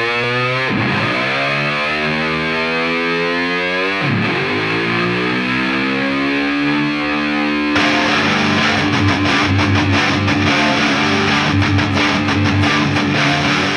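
Music: a distorted electric guitar with sweeping effects. About eight seconds in, a heavier full-band section with a steady beat comes in.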